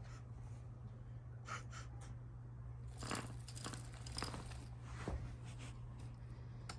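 Kittens at play: scattered scratches, rustles and light taps, clustered in the middle, over a steady low hum.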